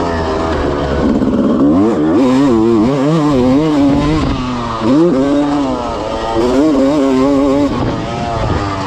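Freshly rebuilt 1996 Honda CR250's two-stroke single-cylinder engine under hard riding, its pitch repeatedly climbing under throttle and dropping back as it is shifted and backed off.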